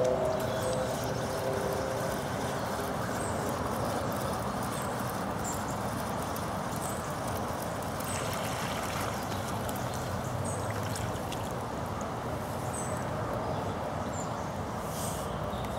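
Steady rushing of a fast-flowing river in flood, with faint short high chirps repeating about once a second.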